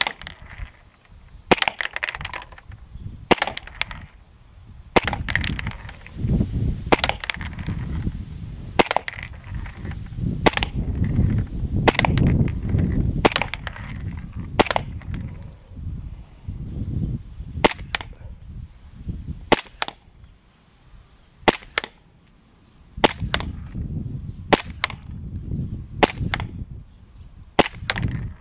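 KSC USP .45 gas blowback airsoft pistol firing single shots, each a sharp crack as the gas vents and the slide cycles. There are about twenty shots, one every second or two, with a pause of about two seconds about three-quarters of the way through. A low rumble fills the gaps between shots.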